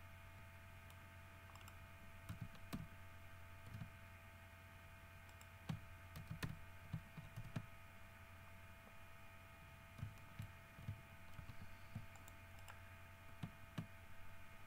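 Faint computer keyboard keystrokes and mouse clicks in scattered clusters over a steady hum.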